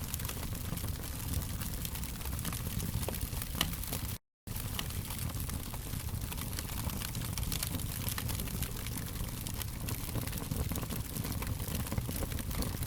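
Fire crackling: irregular sharp pops and snaps over a steady low rush. The sound cuts out completely for a fraction of a second about four seconds in, then resumes.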